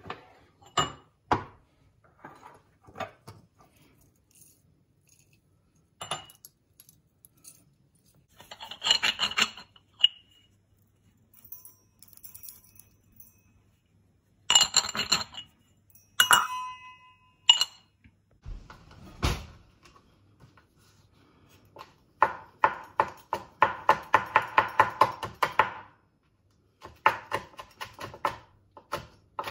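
Clinks and knocks of glass jars and a metal cup handled on a stone counter, then a knife chopping fresh chili on a cutting board in a quick run of strokes, about five a second, near the end.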